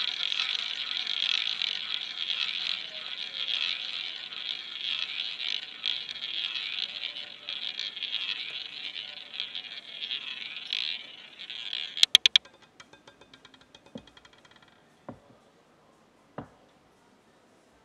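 A roulette ball rolling fast around the wooden track of a spinning roulette wheel, a steady rushing whirr. About twelve seconds in it stops abruptly with a few loud sharp clicks as the ball drops, then rattles in quick fading clicks as it bounces among the pockets and settles, with a few single clicks after.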